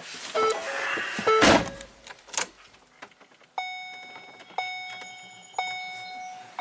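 Warning chime from the van's instrument panel, dinging about once a second in the second half, each ding fading out. Before it, a few short beeps and some brief handling noise.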